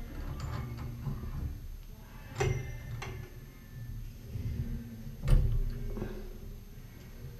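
Small clicks and knocks of metal and plastic shower-valve parts being handled and fitted at a Grohe handheld shower control's cartridge opening. Two sharper knocks come about two and a half and five seconds in, and the second is the loudest.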